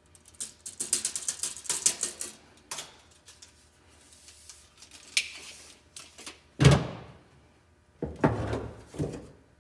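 Steel tape measure retracting with a fast run of clicks for about two seconds, followed by scattered clicks, a single heavy knock about two-thirds through, and a short clatter of handling noise near the end.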